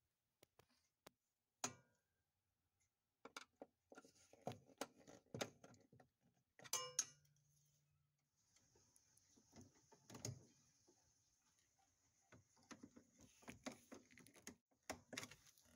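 Faint handling noise: scattered small clicks, taps and rustles, with a sharper click about two seconds in and a short cluster of clicks about seven seconds in.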